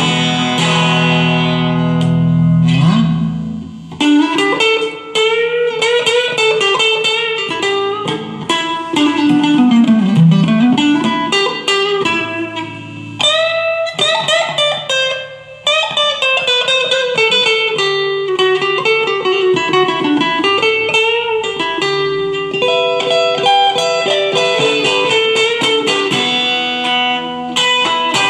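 Electric guitar, a Chinese all-mahogany copy of a Fender Stratocaster, played on its bridge pickup in a tone test: single-note lines and chords, with one note gliding down and back up about ten seconds in.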